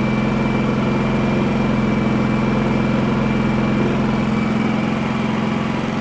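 Champion 4500-watt dual-fuel inverter generator running steadily on propane at eco-mode idle with no load and its covers off, with a thin steady high whine above the engine hum. It runs smoothly, a sign the no-start fault is fixed.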